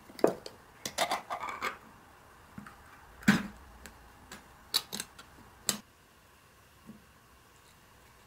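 Ring-pull lid of a can of sweet corn being pried up and peeled open: a run of scraping metal clicks about a second in and a sharp snap about three seconds in, then a few lighter clicks.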